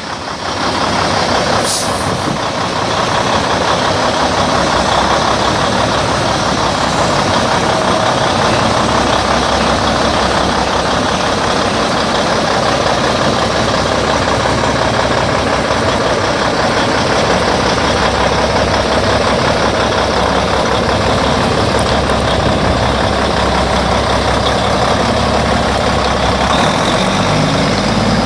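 Cummins N14 Plus 14-litre inline-six turbo diesel in a semi tractor, idling steadily. There is a brief hiss about two seconds in, and the low engine note grows stronger near the end.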